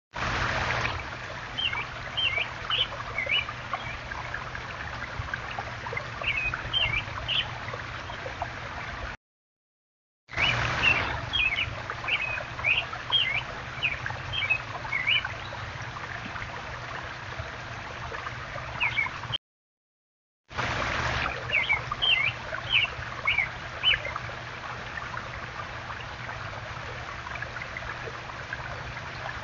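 Water running steadily over a small backyard stone waterfall, with a bird chirping in short runs of quick calls. The sound cuts out twice for about a second between camera clips.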